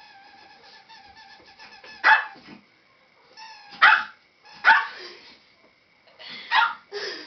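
A small dog barking five sharp times, at uneven intervals. For the first two seconds a squeaky toy gives a long, wavering squeal before the barking starts.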